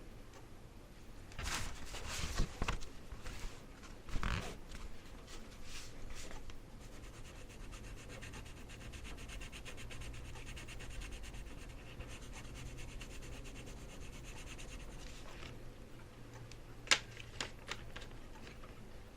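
Oil-based colour pencil shading on paper, laying down a second layer of colour. There are irregular scratchy strokes for the first few seconds, then a steadier stretch of quick back-and-forth rubbing, and a single sharp tap near the end.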